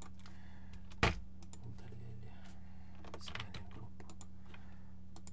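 Scattered computer keyboard clicks, with one louder knock about a second in, over a steady low hum.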